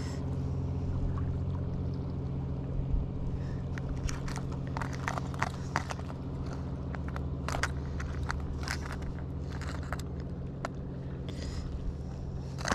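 Lures, hooks and snap swivels clicking and rattling against a plastic tackle box as lures are handled and sorted, over a steady low hum.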